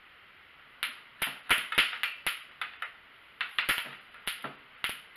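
An irregular run of sharp, short snaps, about fifteen, starting about a second in and coming in quick clusters over a low hiss.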